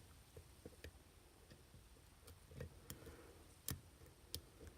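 Faint, irregular small clicks of a steel lock pick working the pin stack inside a Master Lock Pro Series 7045 padlock under light tension, with a few sharper ticks in the second half.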